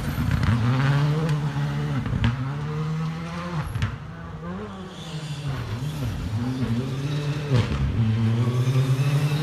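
Rally car engine revving hard on a gravel special stage, its pitch rising and dropping over and over as it accelerates and lifts. A few sharp cracks cut through. The sound eases off in the middle and grows louder again later.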